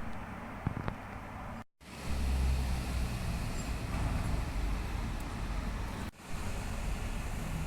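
Film soundtrack playing back during a projector sound test: a steady low rumbling noise, cut off by a brief silence under two seconds in, then back louder, with a short drop near the end.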